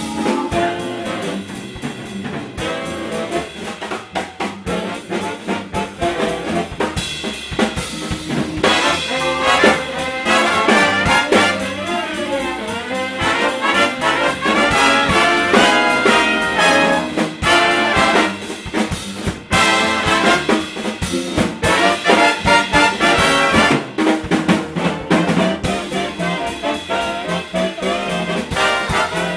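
Live big band playing a swing jazz number: saxophone, trumpet and trombone sections together over a drum kit keeping a steady beat.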